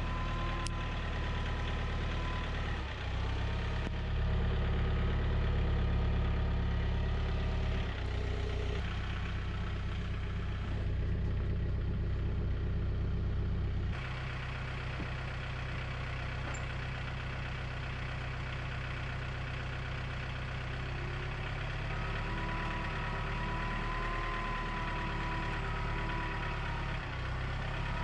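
An engine running steadily, its pitch and loudness shifting abruptly several times.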